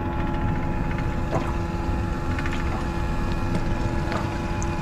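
Outboard motor humming steadily at idle, mixed with wind and water noise, while a fishing reel is cranked with faint clicking from its gears.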